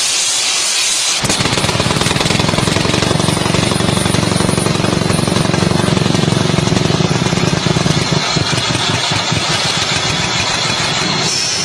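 Small electric-motor drill rig boring horizontally into rock: a hiss, then from about a second in the drill runs with a loud, dense, rapid rattle as the rod bores into the rock face.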